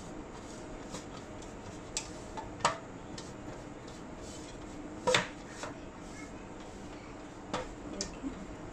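Metal loaf pan giving a handful of light knocks and clinks as it is greased with oil using a silicone pastry brush and shifted by hand, the loudest about five seconds in.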